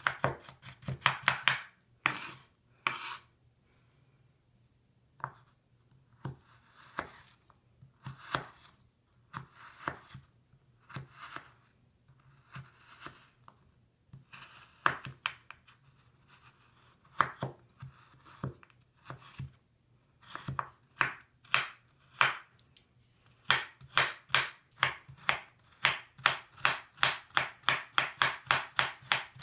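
Kitchen knife chopping crumbly solid bubble bars on a wooden cutting board, each stroke a sharp knock with a crunch. The strokes come quickly at first, thin out to slower, scattered cuts through the middle, then pick up again into fast, even chopping for the last several seconds.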